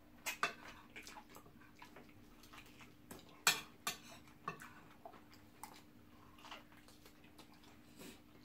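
Metal fork clinking and scraping against a plate of rice in scattered light clicks, the sharpest about three and a half seconds in.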